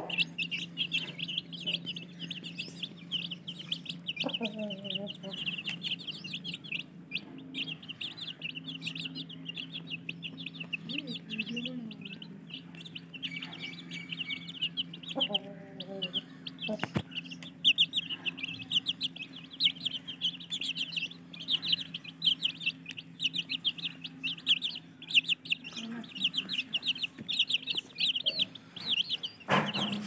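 A brood of Aseel chicks peeping nonstop in fast, high peeps while the Aseel mother hen gives a few low clucks, twice a louder call about four seconds in and again near the middle. A steady low hum runs underneath.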